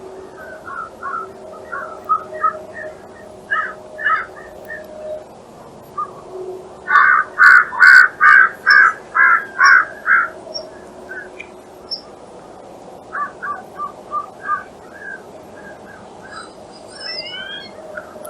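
Wild birds calling in short repeated notes, with a loud run of about eight calls at roughly two a second in the middle and a few quick rising chirps near the end.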